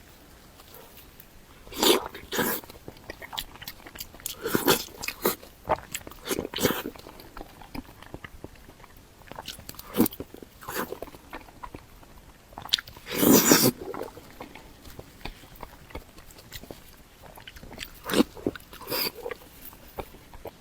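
Close-miked eating sounds: a person biting and chewing food in irregular, separate bites, with one longer, louder burst about two-thirds of the way through.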